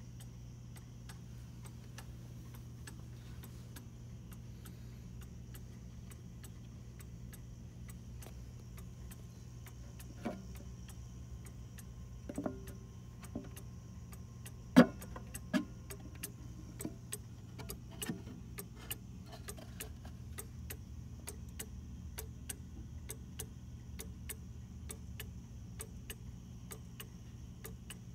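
Antique Black Forest 8-day cuckoo clock movement ticking steadily. Several louder knocks come in the middle, the loudest about halfway through.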